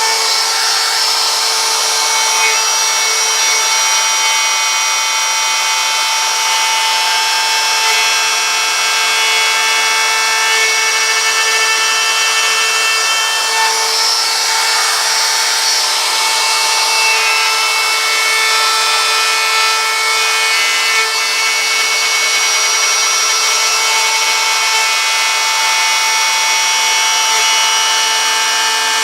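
Power tool running steadily while cutting wood: a continuous high whine made of several fixed tones over a noisy rasp, holding level without pauses.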